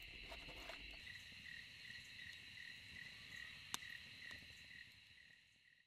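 Dusk insect chorus, faint: a steady high trill with a quieter chirp repeating about three times a second. A few soft crackles and one sharp snap from the small wood fire burning in a steel fire pit, and it all fades out near the end.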